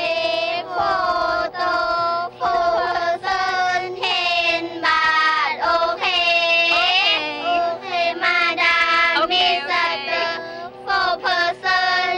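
A small group of young girls singing a song together, with held notes and a simple melody.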